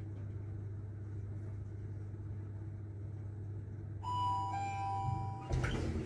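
Steady low hum in an elevator car, then about four seconds in an electronic two-tone elevator chime sounds for about a second and a half. Near the end a louder spread of noise comes in.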